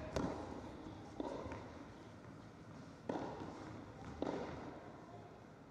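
A sharp knock, then three soft thuds spread over the next few seconds on an indoor tennis court, each ringing on in the echo of a large hall.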